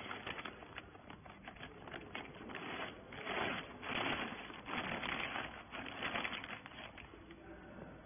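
A clear plastic bag crinkling and rustling as it is handled and pulled over a compressed bale of rags. It is loudest in the middle, then tails off.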